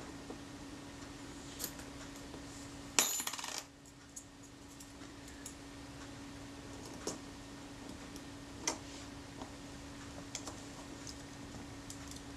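Small metal tools and parts of a camera's shutter and lens mount being handled: scattered light clicks and taps, with a brief metallic clatter about three seconds in. A steady faint hum runs underneath.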